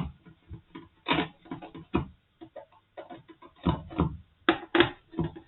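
Irregular clicks, ticks and knocks of a screwdriver and hands working on the plastic case of a Brüel & Kjær 2250 sound level meter as its screws are taken out.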